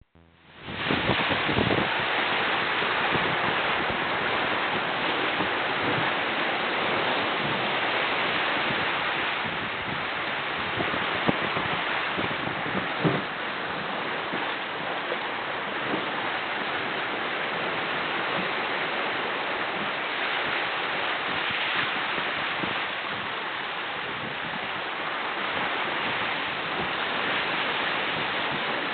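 Steady rush of water and spray along the hull of a Dragonfly 35 trimaran surfing down a swell under sail, mixed with wind on the microphone. Two brief knocks stand out near the middle.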